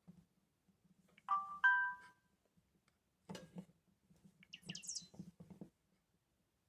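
Short electronic two-note chime, the second note higher, from a Samsung Galaxy S2's loudspeaker about a second in. Then a few clicks and a brief high chirping tone near five seconds. These are the phone's stock Android sound previews playing one after another.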